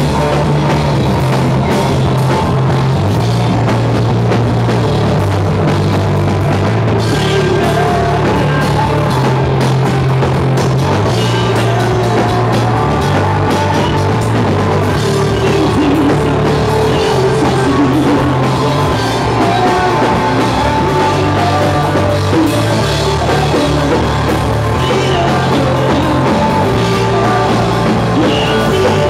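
Live rock band playing loud and without a break: electric guitars, bass guitar and drum kit, the bass line moving between held notes every second or two.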